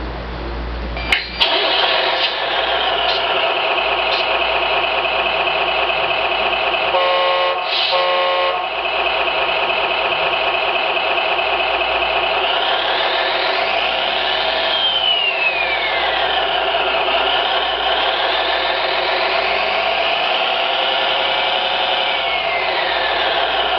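SMX sound module in an RC model truck, playing a simulated truck engine through its small speaker. After a couple of clicks about a second in, the engine sound runs steadily. Two short horn blasts come around seven seconds in, and later the engine revs up and back down twice.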